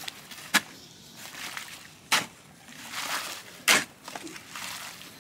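Shovels worked by hand through a wet mix of river sand, tepetate and cement on the ground. Three sharp shovel strokes about one and a half seconds apart, with softer scraping between.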